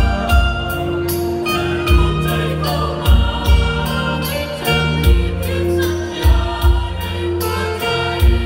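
Mixed choir of men's and women's voices singing a slow Thai song in several-part harmony, with deep bass notes sounding about once a second beneath the held chords.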